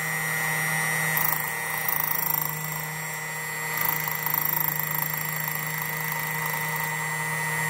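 Jensen Micro-Dial key code machine's motor running with a steady hum while its rotary cutter cuts a depth notch into a B86 ignition key blank; the cutting noise swells twice, about a second in and again around four seconds in.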